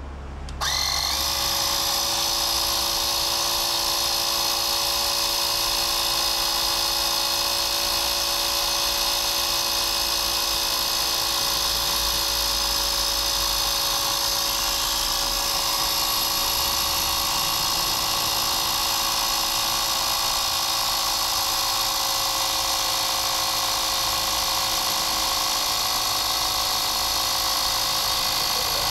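Bosch EasyPump cordless 3.6 V mini compressor switching on about half a second in and then running steadily under load, its small motor and pump giving an even high-pitched whine as it inflates a bicycle tyre.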